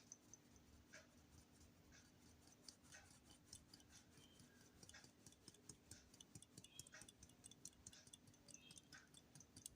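Very faint sieve being worked as flour, baking powder and cocoa powder are sifted: light, irregular clicks that grow denser about three seconds in. A faint tick sounds about once a second throughout.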